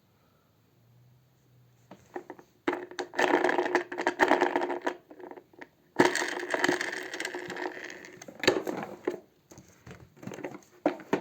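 Rustling, crinkling and clicking from objects being handled close to the microphone, starting about two and a half seconds in, with a short pause about five seconds in.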